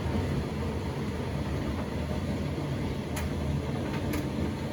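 Indesit My Time EDCE85BTM condenser tumble dryer running: a steady hum of the drum turning and the fan, with a few faint clicks from about three seconds in.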